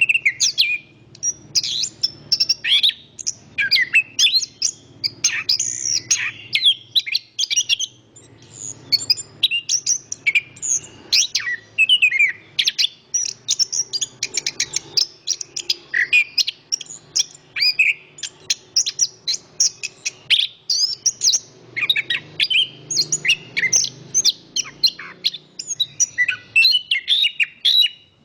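Chestnut-backed thrush (anis kembang) singing a continuous, rapid stream of varied high whistles and trills, over a low rumble of wind.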